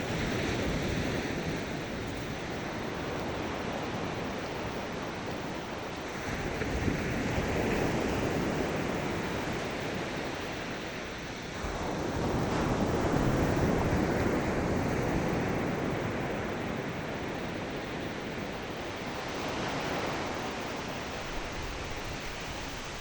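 Ocean waves breaking and washing on the shore in slow, rolling surges, one swell about every five or six seconds, with some wind noise on the microphone.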